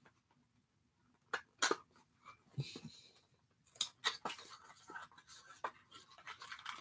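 A small cardboard toy box turned over and pried open by hand: quiet scattered taps and crinkles, a few at first and many close together in the second half.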